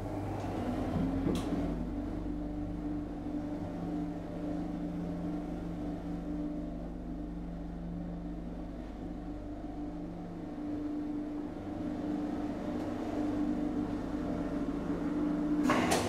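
Elevator machinery running steadily as the car travels through the shaft: a continuous hum with a few steady low tones, swelling into a louder clatter just before it stops at the end.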